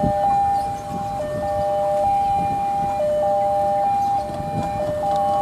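Railway level crossing warning alarm sounding a repeating two-tone electronic signal that alternates between a higher and a lower pitch, warning that a train is approaching, over a low rumble of waiting traffic.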